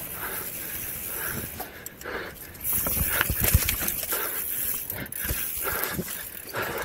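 Mountain bike riding down a dirt singletrack: the tyres rolling over dirt and roots and the bike rattling and knocking over rough ground, with rushing noise on the mounted camera's microphone.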